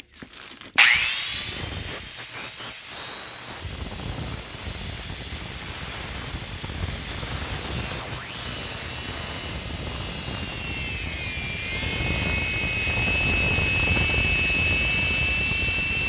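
Dremel compact saw starting up about a second in and cutting through a steel bar of a computer case with its cutting wheel, sparks flying. It runs steadily with a high whine that wavers slightly in pitch as the wheel bites into the metal.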